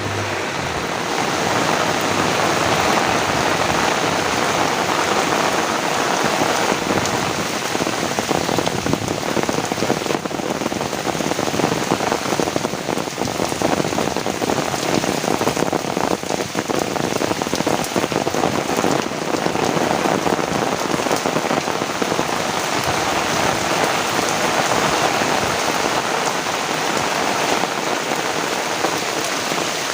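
Heavy rain falling steadily on surfaces: a dense, even hiss with many small drop impacts.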